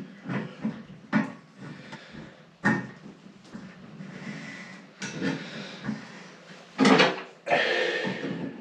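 Pliers knocking and scraping on a chrome bath mixer tap as its quarter-turn cartridge is loosened and unscrewed: a series of sharp metallic clicks and clunks, the loudest about seven seconds in.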